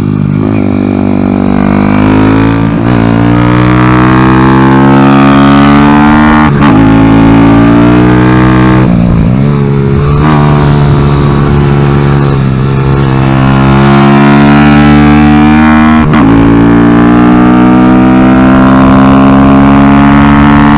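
Kawasaki Z125's single-cylinder four-stroke engine revving hard under load on the track. The pitch climbs steadily and then drops sharply at each of several gear changes, at about 3, 6.5, 9 and 16 seconds.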